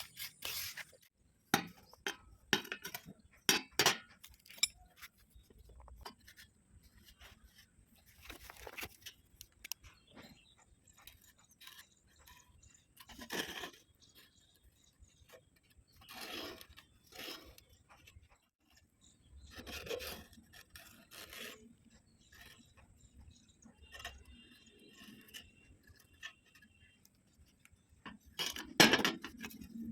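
Metal pieces and hand tools being handled: scattered clinks and taps, a few sharper knocks in the first seconds, and several short scraping or rubbing passes, with quiet gaps between.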